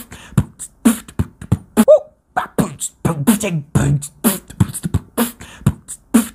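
Beatboxing: a fast, rhythmic stream of mouth-made kick, snare and hi-hat sounds, with a short vocal squeal that bends up and down about two seconds in.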